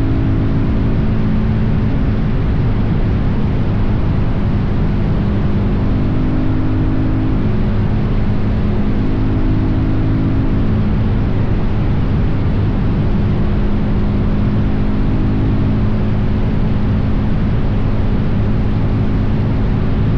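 Suzuki DR-Z400's single-cylinder four-stroke engine running steadily at road speed, its note shifting slightly in pitch now and then, under a constant rush of wind and road noise.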